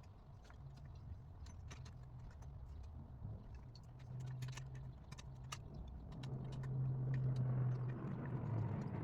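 Scattered light clicks and metallic clinks, like small tools and parts being handled, over a low steady hum that swells after about four seconds and is loudest around seven seconds.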